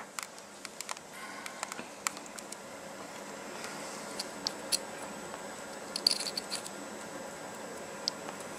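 Scattered faint clicks, taps and light scratching over a steady low hiss: small handling noises of a soldering iron and solder wire being worked against LED leads, with a small cluster of clicks about six seconds in.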